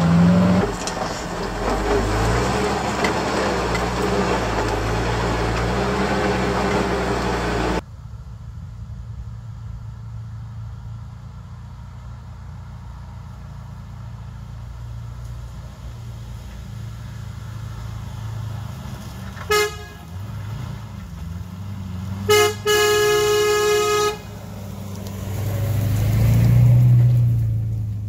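The International Loadstar 1700 ex-fire truck's engine runs steadily as it drives a rough dirt trail, with road noise. After an abrupt drop to quiet, a vehicle horn gives one short toot and then a longer blast of about a second and a half, and a truck engine then grows louder as it approaches.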